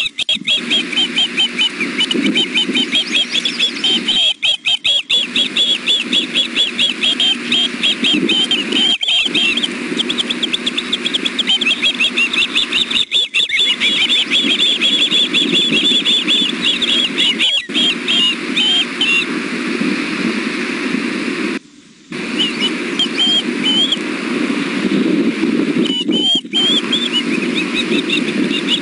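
Juvenile ospreys food-begging: a rapid, nearly unbroken series of high, thin chirping whistles. Beneath them runs a steady low rumble, and the sound cuts out briefly a few times.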